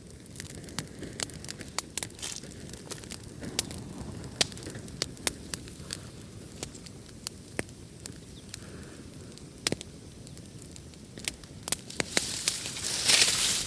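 Wood fire in a fireplace crackling, with frequent sharp pops over a low steady rumble of flame. Near the end a louder hissing rush swells for about a second and a half.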